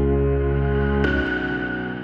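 Background music of sustained chords, with a new chord coming in about a second in and the music then beginning to fade out.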